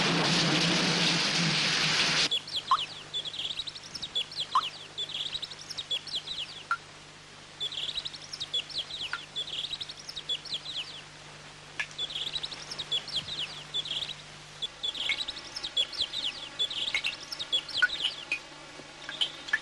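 Heavy rain, cut off abruptly about two seconds in, followed by birds chirping in repeated runs of quick, high, downward-sliding chirps. Near the end a faint steady hum of several held tones joins underneath.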